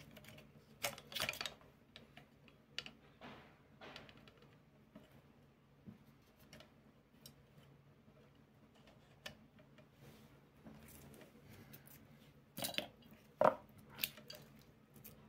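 Metal fletching jig and wooden arrow shafts being handled: scattered light clicks and clatters of metal and wood. The loudest clusters come about a second in and again near the end.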